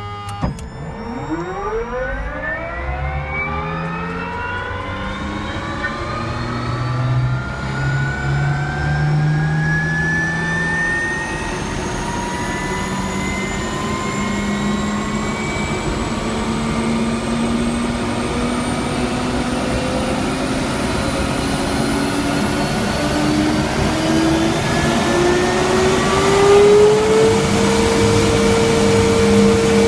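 Garrett TPE331-6 turboprop engine on an automatic cold start: a click as the start begins, then a whine that climbs steadily in pitch as the engine spools up through light-off. It levels off into a steady tone near the end as the engine settles at about 65% RPM.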